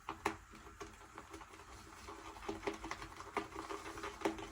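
Boar-bristle shaving brush being swirled and worked in a lathering bowl to build up shaving-soap lather, with soft, irregular clicks and taps.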